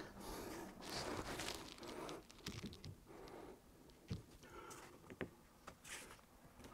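Quiet handling noise as a long wooden batten is carried and set upright against a wall, with rustling, shuffling steps and a few light knocks as it is pressed into place.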